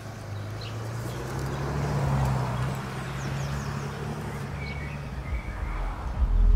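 Mercedes-Benz SUV driving slowly over tarmac, a low steady engine hum with tyre noise that swells about two seconds in, and a few birds chirping.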